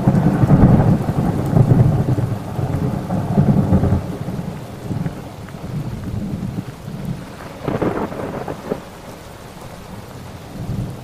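Thunder rumbling over steady rain during a thunderstorm, heavy for the first four seconds and then dropping off sharply, with a shorter burst of thunder near eight seconds in.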